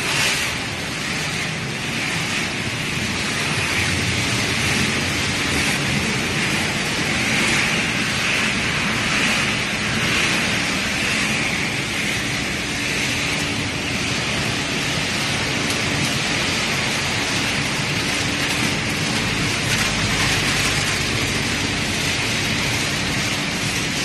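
Dog-kibble extrusion line machinery running: a steady, even mechanical noise with a hiss like pellets pouring, and a faint steady hum underneath.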